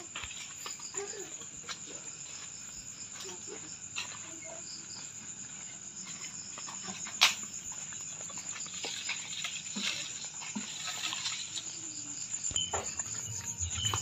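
Crickets chirping, a continuous high trill, with one sharp click about seven seconds in.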